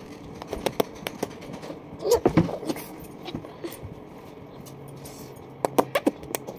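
Scattered small clicks and taps made close to the microphone, with a short child's vocal sound about two seconds in and a quick cluster of clicks near the end.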